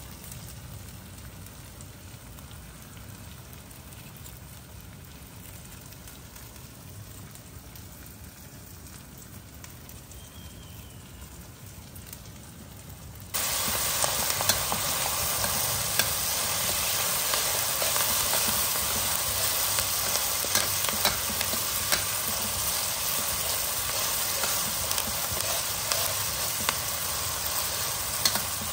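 Curry paste and curry leaves frying in oil in a wok, a steady sizzle. About halfway through it turns suddenly louder, with the metal wok spatula scraping and clinking against the wok as the mix is stirred.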